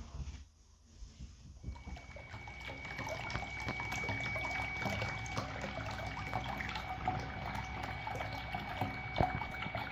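Submerged 12-volt electric bilge pump, a 2,000 gallon-per-hour model, driving water through a 3D-printed two-inch dredge suction nozzle. Water churns and splashes over a steady high whine, starting about two seconds in and swelling to a steady level.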